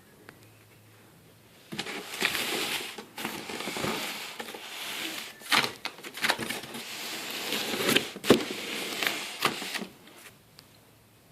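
Packaging being handled during an unboxing: irregular rustling and crinkling with sharp clicks and knocks, starting about two seconds in and stopping near the end.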